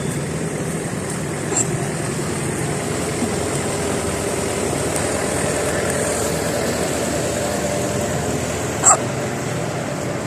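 Steady roadside traffic noise, with two short hiccups from a woman: a faint one about a second and a half in and a louder, sharp one near the end.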